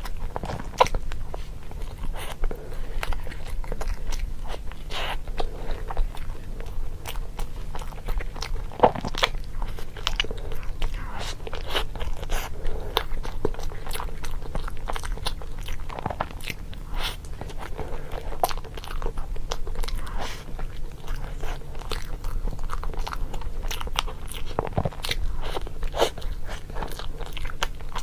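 Crunchy food being bitten and chewed close to the microphone: many small, irregular crisp crunches throughout, over a steady low hum.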